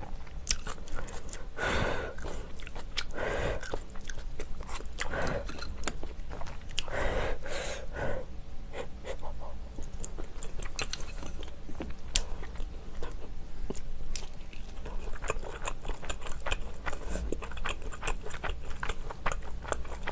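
Close-miked eating of kimchi and rice: chewing with wet crunches, in clusters a second or two apart, among many small sharp clicks of chopsticks and spoon.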